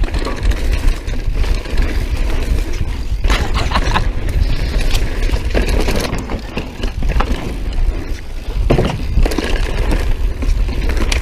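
Mountain bike descending a fast, dry dirt trail: tyres crunching and scraping over loose dirt and rocks, and the bike rattling and knocking irregularly over bumps. Heavy wind rumble on the on-bike camera's microphone runs underneath.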